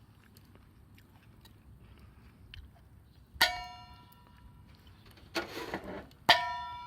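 A metal object struck twice, about three seconds apart, each clang ringing on with a bell-like tone, with a short scraping rustle just before the second.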